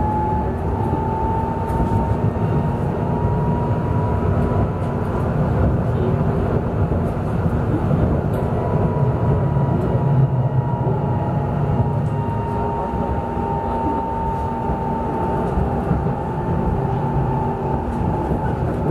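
Duewag B80D light-rail car running, heard from inside the passenger compartment: a steady rumble of wheels on the track under a high whine that climbs a little in the first few seconds and then holds.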